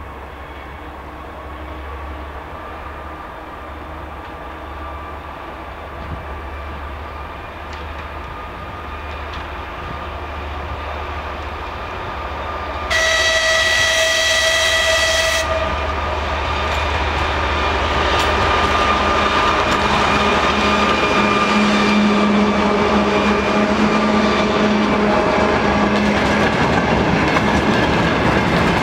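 Two-section 2TE116U diesel locomotive hauling a freight train, approaching and passing with its diesel engines growing steadily louder. One horn blast of about two and a half seconds sounds around the middle. Near the end the tank cars and wagons roll past close by, wheels clattering over the rail joints.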